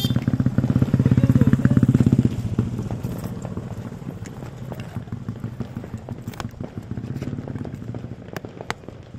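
An engine idling nearby with a rapid, even pulse, loudest for the first two seconds and then quieter. A few sharp clicks come near the end.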